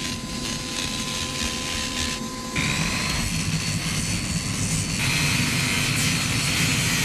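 Handheld electric angle grinder running and grinding into a block of white stone: a steady high whine over a coarse hiss. About two and a half seconds in it gets louder and the whine shifts higher.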